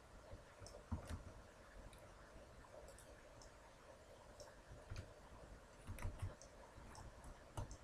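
Faint, scattered clicks of a computer mouse and keyboard keys, about half a dozen single taps spread over several seconds, over low room hiss.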